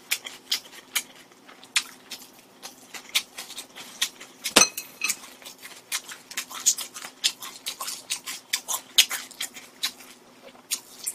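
Close-miked eating: irregular sharp clicks from chewing, along with chopsticks clinking against a dish, several a second. A faint steady hum runs underneath.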